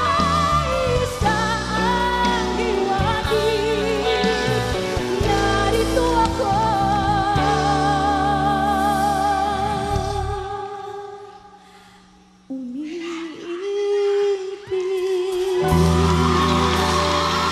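A woman singing a ballad over band accompaniment, her long notes held with a wide vibrato. About ten seconds in the band fades away. A lone sung note rises and is held with vibrato, and the full band comes back in near the end.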